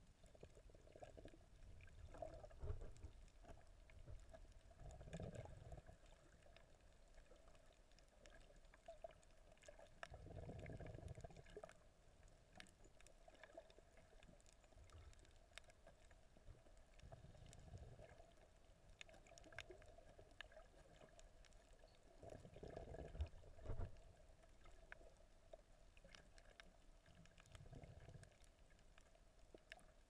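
Faint, muffled underwater sound with the recorder held under water. Soft low swells of water movement come every few seconds over a faint steady hum, with scattered faint clicks.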